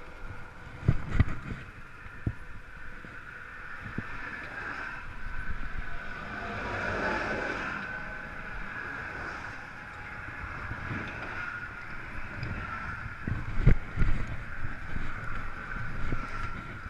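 Roadside wind noise on the microphone with traffic, one vehicle swelling past around the middle, and a few sharp knocks, loudest about a second in and again near fourteen seconds.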